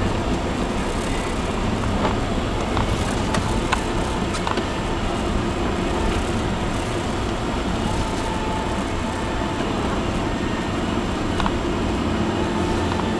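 Steady engine and road noise inside a moving car's cabin, driving on a snow-covered road, with a few faint clicks.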